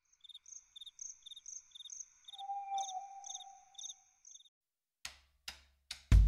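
Cricket chirping in a steady pulse of about two chirps a second, with a held lower tone under it in the middle. Then three sharp knocks about half a second apart, and music with drums starts right at the end.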